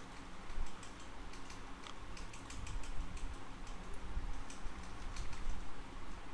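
Irregular clicking of a computer keyboard and mouse in quick, uneven runs, over a steady low hum.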